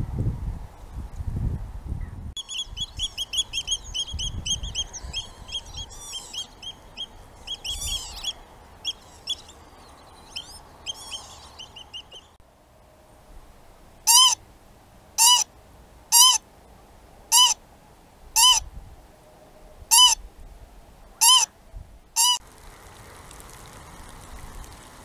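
A bird close to the microphone gives eight short, loud calls about a second apart. Before them, small birds sing with rapid, high repeated notes, and at the start there is a low wind rumble.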